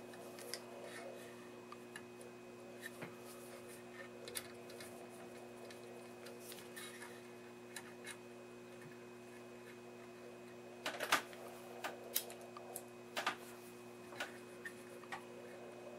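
Faint scattered metal clicks and scrapes of a screwdriver and nut driver working the sliding tap clamp of a wirewound power resistor, with a cluster of louder clicks between about eleven and thirteen seconds in, over a faint steady hum.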